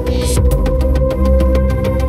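Background electronic music with a quick, steady ticking beat over held synthesizer tones and heavy bass.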